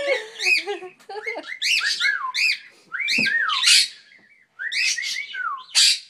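Cockatiel whistling a string of short notes that rise and fall in pitch, with a brief pause about four seconds in.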